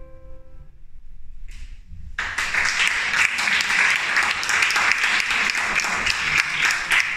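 A grand piano's final chord rings and fades out within the first second. After a short pause, audience applause starts about two seconds in and keeps up steadily.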